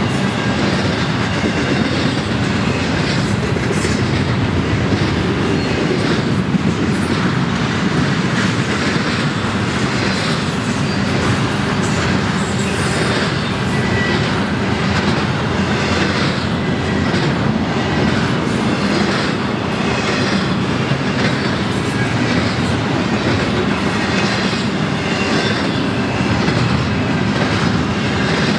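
Double-stack intermodal freight train's loaded well cars rolling past: a steady rumble of steel wheels on rail with a regular clickety-clack of the wheelsets.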